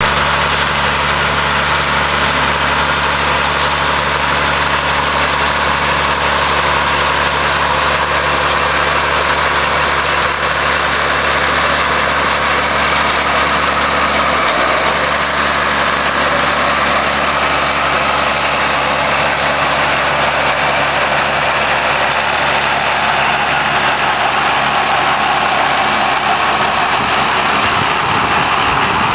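Potato-harvesting machinery, a tractor engine with a potato harvester, running steadily, its engine drone steady under a dense, continuous mechanical noise.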